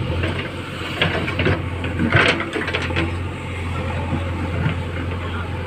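JCB 3DX backhoe loader's diesel engine running steadily while the backhoe bucket digs into a heap of earth, with a few crunching, scraping sounds of soil and stones, the loudest about two seconds in.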